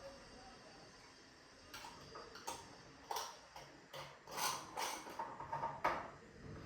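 A scatter of light clicks and taps from small hard objects being handled and set down, starting about two seconds in.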